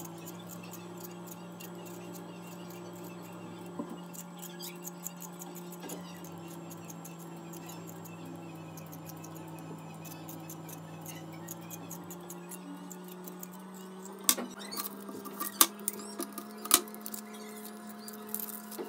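Hand-held potato peeler scraping the skin off a raw potato in many short, quick strokes, over a steady low hum. About two thirds of the way through come a few sharp knocks.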